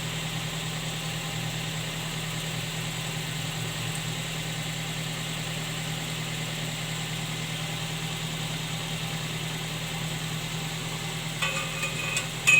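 Vehicle engine idling steadily, with a few light metallic clinks near the end as the turbo whistle attachment is handled at the exhaust pipe.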